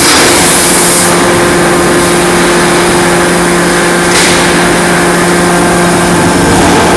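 Loud, steady machinery noise of a forging workshop: a continuous hum with hiss, with no distinct hammer or press blows standing out.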